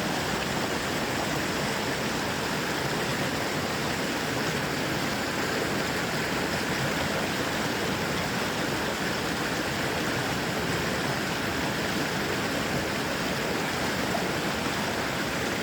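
Steady rush of flowing water from a small waterfall, an even hiss without breaks.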